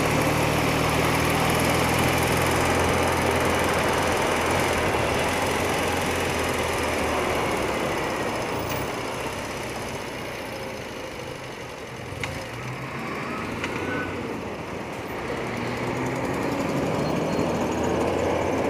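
Motorcycle engine running at steady cruise with wind and road noise, easing off and quieter about halfway through, then climbing in pitch and louder again near the end as the bike accelerates.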